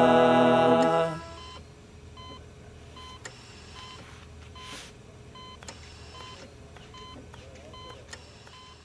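A choir's final held chord of the sung jingle, cutting off about a second in, followed by a faint series of short electronic beeps at uneven intervals.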